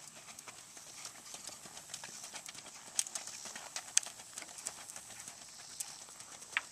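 Shod hooves of a racking horse striking a dirt track in a fast, even rack: quick, steady hoofbeats, with a few sharper strikes standing out. The mare wears 3/4 x 3/8 shoes.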